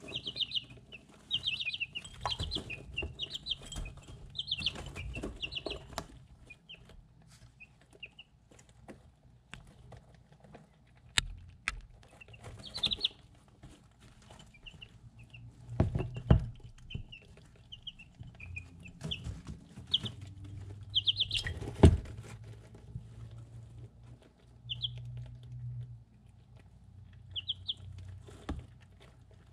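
Three-week-old chicks peeping in short, high, trilled chirps while pecking feed from a ceramic dish, with irregular sharp taps of beaks and feet on the dish. The loudest tap comes about three quarters of the way through.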